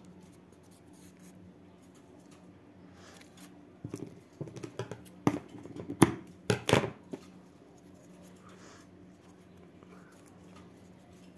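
Metal scissors snipping sewing thread: a short run of snips and clicks between about four and seven seconds in, as the scissors are opened, closed and handled on the table.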